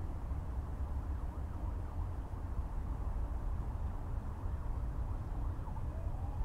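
Dawn forest ambience: a steady low rumble under a soft haze of birds and insects, with faint short calls. Near the end a thin whistle begins and rises slowly in pitch.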